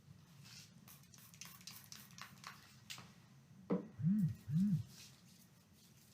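Hands being sanitized: faint rubbing and rustling, then about two thirds of the way in a sharp click followed by two short, loud, squishy sounds about half a second apart, each rising and falling in pitch.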